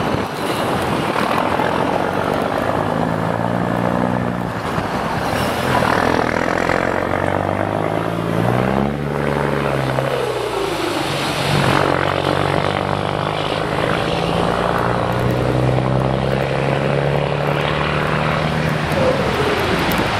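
DAF CF410 truck's six-cylinder diesel through a straight-piped (open) exhaust, pulling hard. Its note climbs in pitch and drops back at a gear change about nine seconds in, then runs on steadily, with tyre hiss from the wet road.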